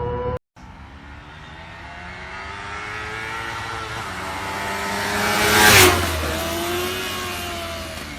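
Kawasaki sport motorcycle at speed passing close by: its engine note builds as it approaches, peaks loudly about six seconds in, and drops in pitch as it goes past and away. About half a second in, a different bike's steady engine note cuts off abruptly.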